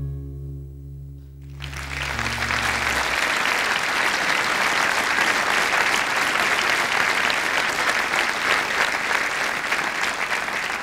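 The last acoustic guitar chord rings and dies away. About a second and a half in, a theatre audience breaks into steady applause.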